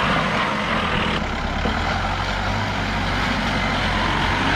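Mahindra off-road jeep engine running steadily at low revs while the jeep crawls through a muddy, rocky crossing. The sound changes abruptly about a second in, when it switches to a second jeep.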